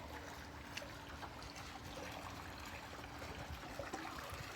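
Faint, steady trickle of running water, with a low steady hum underneath.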